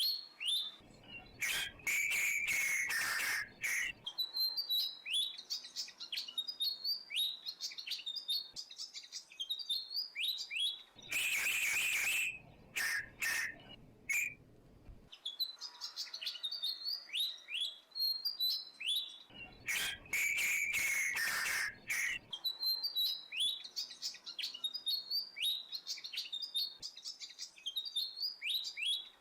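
Birds chirping in quick runs of short, high, falling notes. Three times a louder stretch of a few seconds breaks in, a held whistling note over rushing noise.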